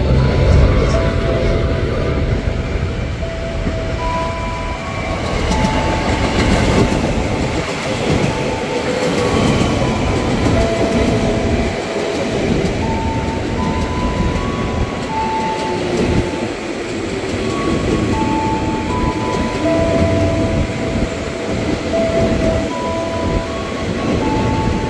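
JR 205 series electric commuter train running past close by, its wheels running on the rails in a continuous rumble. Short, steady high whining tones come and go at several different pitches throughout.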